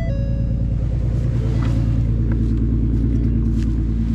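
Ford Mustang 3.7-litre V6 idling steadily through freshly installed BBK shorty headers, an X-pipe and a muffler delete, on its first run after the header install.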